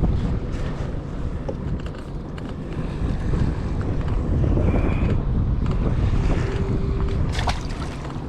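Wind buffeting the microphone, a dense low rumble that grows louder about three seconds in, with a few light clicks and knocks.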